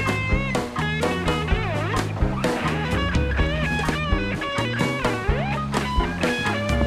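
Background rock music: electric guitar playing bent, sliding notes over a bass line and a steady drum beat.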